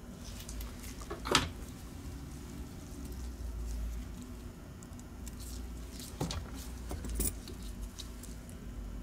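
Scattered small clicks and taps of hand tools and small mouse parts being handled on a rubber work mat, the loudest about a second and a half in, over a low steady hum.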